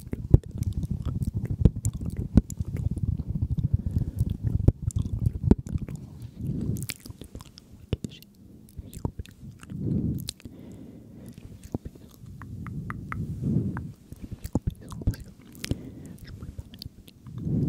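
Close-miked ASMR mouth sounds: a dense run of wet clicks and smacks for about five seconds, then softer low swells every few seconds with scattered clicks.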